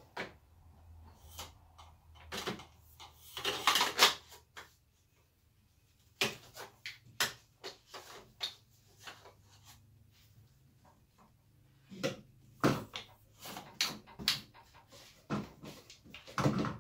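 Metal extension pole and plastic head of a cordless pole saw being fitted together and handled on a workbench: scattered knocks, clicks and rattles, loudest in a cluster about three to four seconds in and again near the end.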